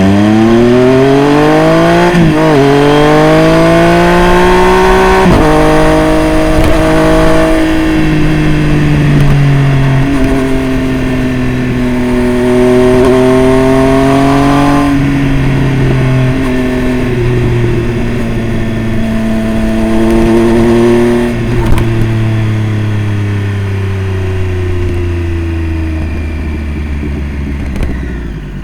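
Triumph Street Triple RS's 765 cc inline-three engine through a Jeskap full aftermarket exhaust, accelerating hard with the revs climbing and dropping at two quick upshifts in the first few seconds. It then runs at steadier revs, rising and easing off the throttle, and the revs fall away near the end as it slows.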